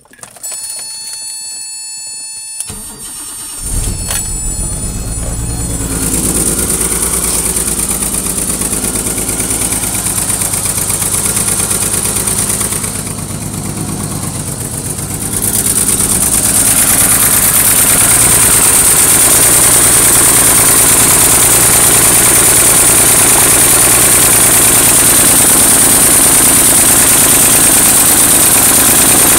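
A warning tone sounds for the first couple of seconds, then the BMW E23's M30 straight-six is cranked and catches, and settles into a rough idle, louder from about sixteen seconds in. The rough running is a misfire, which the owner puts down to a faulty spark plug wire, likely on cylinder 5, not the fuel pump or filter.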